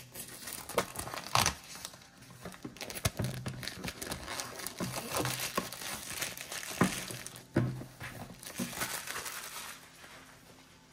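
Clear plastic shrink wrap being torn and peeled off a cardboard box and crumpled in the hand, crinkling with many sharp crackles. It dies down about a second before the end as the unwrapped box is set down.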